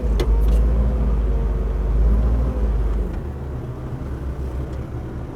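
A heavy machine's engine running with a deep, steady hum. It is loudest for about the first three seconds, then settles to a lower level.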